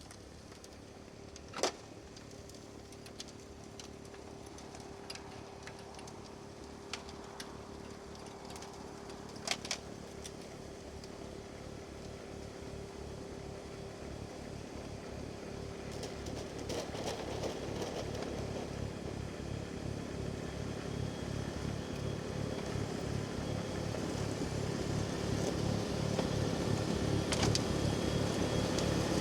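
Kubota tractor's diesel engine running with its rear PTO snowblower, growing steadily louder as it comes closer. A couple of sharp clicks sound in the first ten seconds.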